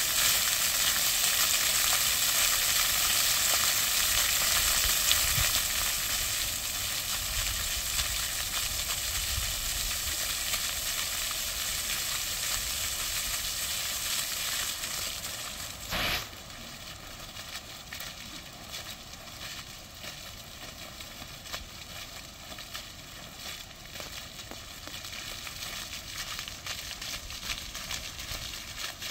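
Plaza fountain's water jets splashing onto the stone basin, a steady hiss that grows quieter as the jets shrink. It drops off sharply about halfway through, leaving the fainter patter of a single small jet.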